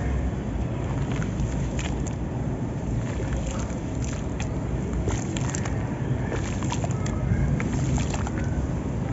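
Hands sloshing and squeezing through a tub of thick grey muddy water, a continuous wet swishing and squelching with many small splashes and drips, over a low steady rumble.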